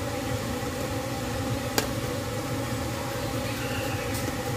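A metal ladle stirring soup in an aluminium pot, with a single sharp clink against the pot a little under two seconds in, over a steady low rumble and hum.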